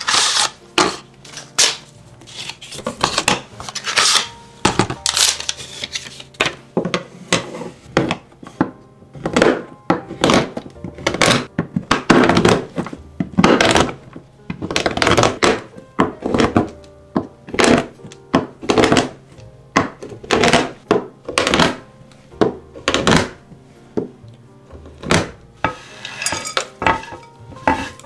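A large kitchen knife chopping dark chocolate bars into chunks on a wooden cutting board: a long run of sharp, uneven chops and cracks, one or two a second. Background music plays underneath.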